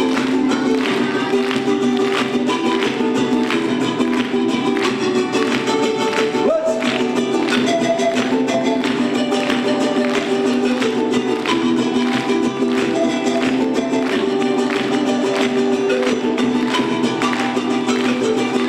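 Live Andean music: a charango-type plucked string instrument strummed in a steady rhythm, with a panpipe playing a melody over it.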